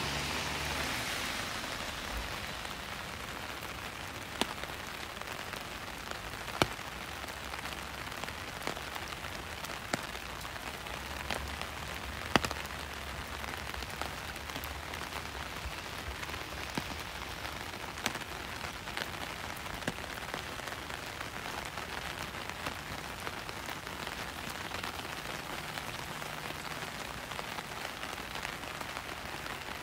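Steady rain falling on surfaces, with scattered sharp single ticks standing out every few seconds.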